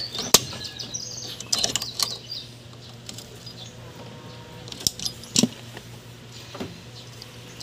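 Pliers and hand tools clicking and clinking against the steel springs and hold-down hardware of a rear drum brake, a handful of sharp metallic clicks with pauses between. Faint bird chirps in the first second or so.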